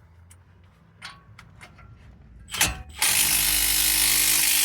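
Impact wrench hammering on a large brake caliper bracket bolt. It starts with a sharp burst about two and a half seconds in, then runs loud and steady, after a few small clicks of the socket being seated.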